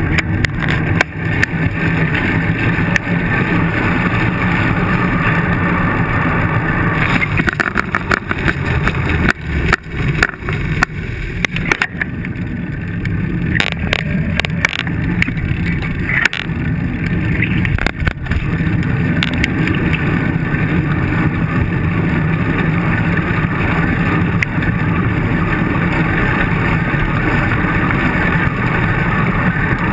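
Wind buffeting and road rumble picked up by a handlebar-mounted camera on a moving bicycle, a steady low rumble throughout. A cluster of knocks and rattles in the middle stretch comes from jolts over rough pavement.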